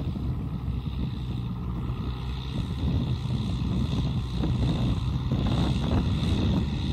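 Kubota M6040SU tractor's diesel engine running steadily while driving through a muddy paddy, with wind buffeting the microphone.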